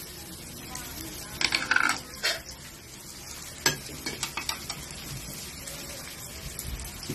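Chopped garlic and onion sizzling in hot oil in a metal wok, with a few sharp clinks and a scrape of a utensil against the pan about one and a half to two seconds in and again around four seconds in.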